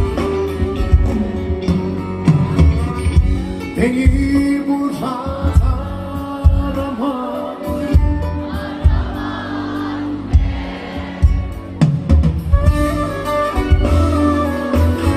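Live band music with a singer over drums, electric guitar and plucked strings.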